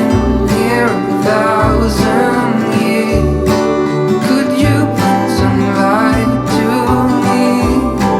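Music: an acoustic guitar song with bass, playing steadily.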